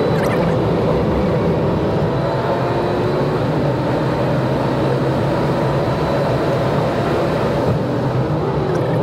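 Renault Clio's 90 hp 1.5-litre diesel engine pulling steadily at high speed, around 125 km/h, heard from inside the cabin together with steady road and wind noise.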